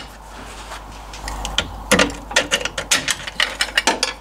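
An irregular run of sharp metallic clicks and clinks, about four a second, starting a little over a second in. They come from tools and loosened rear leaf-spring mounting parts being worked free at the axle.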